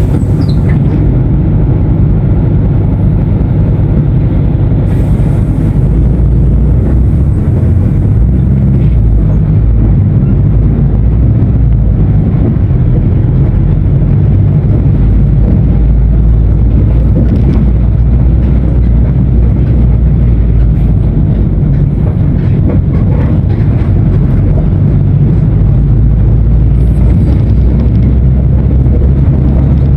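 Mercedes-Benz OF-1519 BlueTec 5 bus's diesel engine running with a loud low drone that shifts in pitch several times as engine speed changes.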